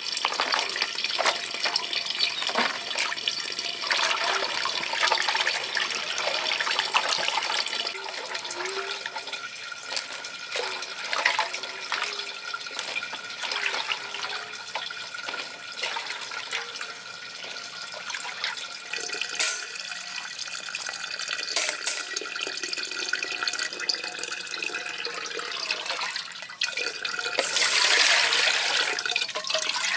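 Water running and splashing, with scattered knocks, growing louder near the end.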